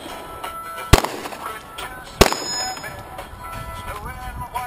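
Two handgun shots, about a second and a quarter apart, over background music.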